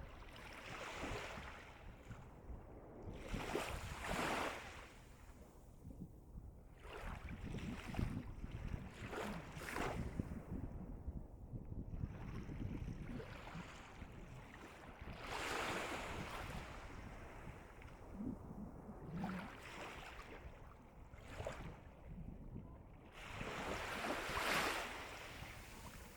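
Calm sea waves on the East Sea shore, breaking and washing in with a hiss in repeated surges every few seconds, over a steady low rumble.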